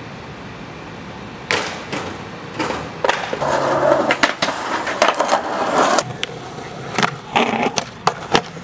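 Skateboard tricks on concrete: sharp pops and slaps of the board, with a couple of seconds of the board rolling and scraping along concrete in the middle, and more cracks of landings near the end.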